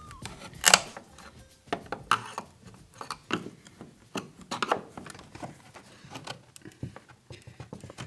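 Screwdriver prying at a metal floor vent grille: scattered clicks, scrapes and light metallic taps, the sharpest about a second in.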